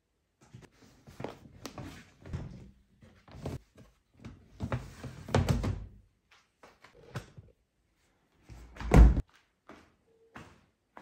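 Scattered knocks and clatter, with a denser rustling clatter around the middle and one loud heavy thump about nine seconds in.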